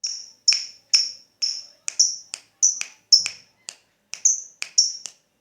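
Lovebird giving its 'ngetik' call: a run of short, sharp, high chips, about two to three a second. It is the clipped call that lovebird keepers use to set other lovebirds off into their long 'ngekek' chatter.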